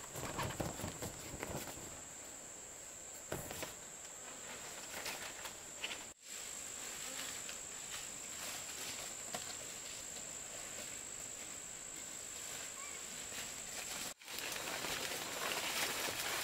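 Insects droning with one steady high tone, over forest ambience with scattered light rustles and ticks. The drone drops out for a moment twice.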